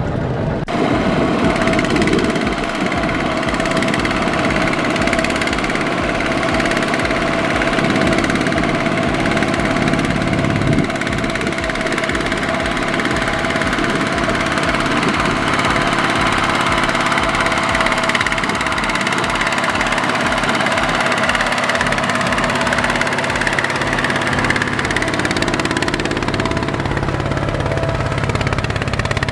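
Single-cylinder diesel engine of a two-wheel power tiller running hard with a fast, steady thump, under load as its mud-caked wheels churn through deep mud pulling a loaded trailer.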